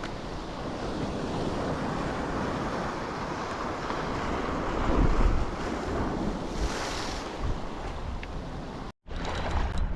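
Sea waves washing onto the shore, with strong wind buffeting the microphone. The surf swells louder about five seconds in and again around seven seconds, and the sound drops out abruptly for a moment near the end.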